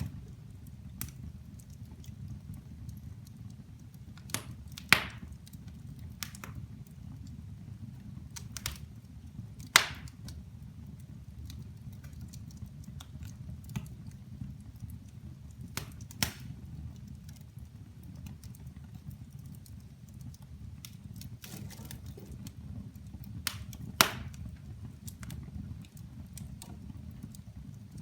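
Wood fire burning in a fireplace: a steady low rumble of the flames with irregular sharp crackles and pops of the burning logs every few seconds, the loudest about five, ten and twenty-four seconds in.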